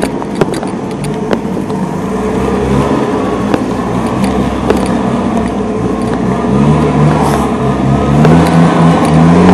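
An engine running steadily, its pitch wavering and then climbing over the last few seconds, with scattered sharp clicks over it.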